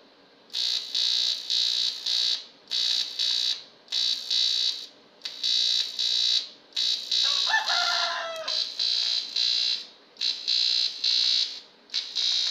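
TIG welding arc on an aluminium bicycle frame, struck and stopped about eight times in a row. Each burst is a loud, high-pitched buzz that pulses within itself, and the bursts run for uneven lengths. A rooster crows faintly behind the arc about halfway through.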